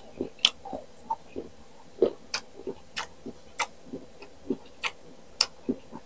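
Close-miked chewing of crisp unripe green mango: a run of short sharp crunches, about two or three a second.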